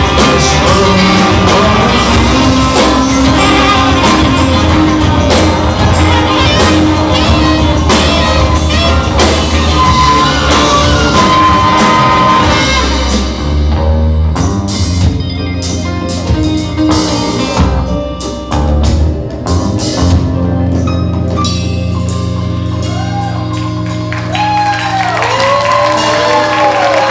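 Live band with singers, horns, guitars, piano and drums playing the end of a song: the full band for about half the time, then thinning to separate drum hits over a held low chord. The audience starts whooping and cheering near the end.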